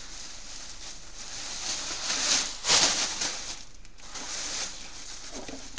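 Thin printed plastic sheeting rustling and crinkling as it is folded and smoothed by hand on a table, loudest about three seconds in.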